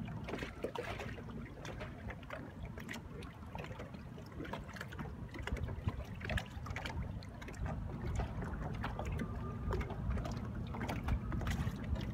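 Water lapping and slapping in small, irregular splashes against a boat's hull, with wind rumbling on the microphone.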